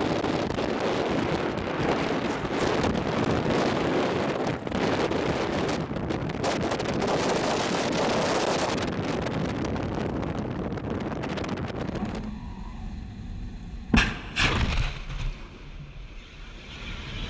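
Rocket-motor roar of missiles launched from a Ticonderoga-class cruiser's Mk 41 vertical launch system, mixed with wind buffeting the microphone. About fourteen seconds in come two sharp bangs half a second apart.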